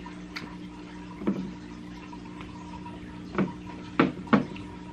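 Eating sounds at a table: a few short, sharp smacks and clicks from chewing pizza and handling it on a paper plate, the loudest two close together near the end, over a steady low hum.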